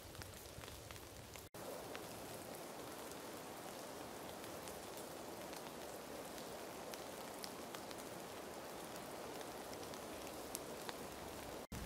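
Snowmelt dripping from the trees of a thawing forest: a steady soft patter with scattered single drops ticking, broken twice by a brief gap.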